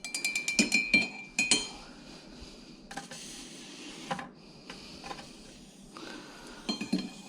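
Metal tools clinking and ringing: hot soldering tongs knocking against metal, a quick run of clinks at the start and a few more near the end, with a soft hiss in between.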